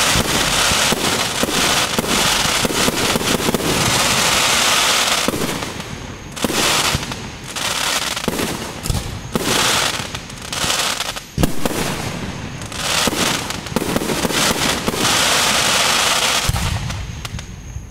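Aerial fireworks shells bursting and crackling, a dense continuous crackle for the first five seconds, then separate bursts with short gaps and one sharp, loud bang a little past the middle.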